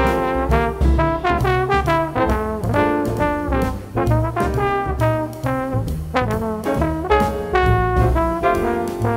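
Jazz trombone playing a quick, moving line with notes slid into one another, over walking upright bass, piano and a drum kit with cymbals.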